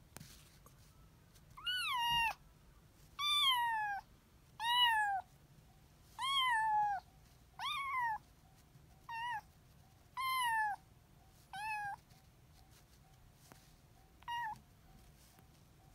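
A kitten meowing nine times, high-pitched calls spaced a second or two apart, each falling in pitch; the last few are shorter.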